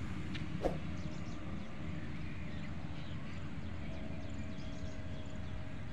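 Open-air ambience: a steady low rumble of wind and background noise with faint birds chirping, and a single short click a little under a second in.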